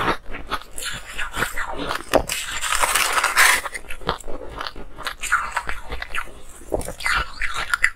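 A mouthful of ice being crunched and chewed, a quick run of sharp cracking crunches with a longer, denser crackle about three seconds in.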